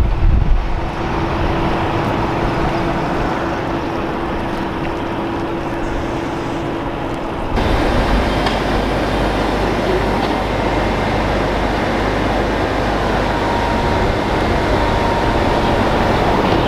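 City street traffic: buses and cars running, heard as a steady wash of engine and road noise with a steady hum underneath. About halfway through, the sound cuts abruptly to a louder, deeper traffic rumble.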